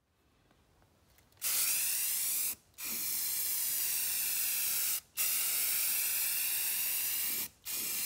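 Aerosol spray can spraying coating onto a car door panel: a steady hiss in long sprays of about two seconds each, broken by three short pauses.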